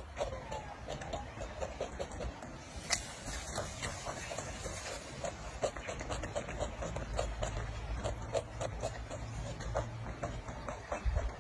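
Macaque chewing crunchy bites of raw cucumber: short, irregular crunches and mouth clicks over a low background rumble.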